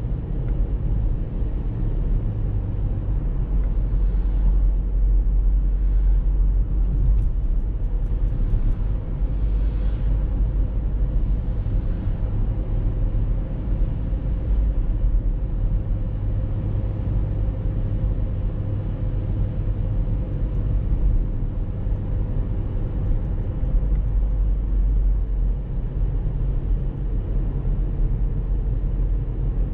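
Steady low rumble of a car driving along a paved road: tyre and engine noise at a constant cruising speed.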